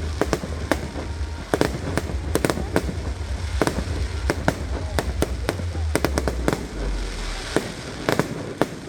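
Aerial fireworks going off: a fast, irregular string of sharp bangs and crackles, several a second, over a low rumble that dies away about two-thirds of the way through.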